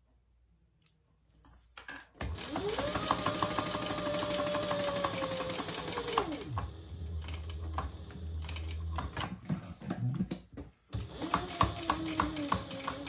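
Sewing machine stitching. Its motor hums up to speed about two seconds in and runs fast for a few seconds, then drops to a slower, lower hum. It stops for a moment about eleven seconds in, then stitches again.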